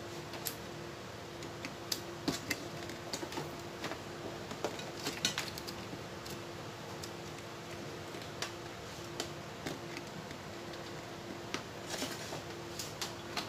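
Scattered light clicks and rustles of a power cable and its plastic connector being handled and plugged in, over a steady hum.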